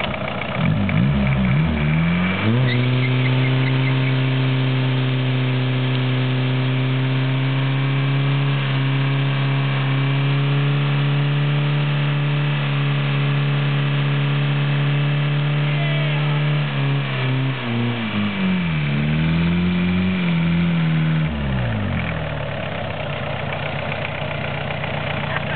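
Volkswagen Jetta 1.6 four-cylinder engine revved hard and held at high revs for about fourteen seconds while its wheels spin in a burnout, then blipped down and up a few times before dropping back to idle.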